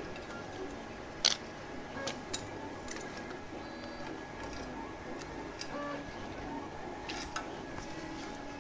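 A handful of sharp, scattered clicks and light taps from hands working wiring and connectors at a robot's control panel, the loudest about a second in.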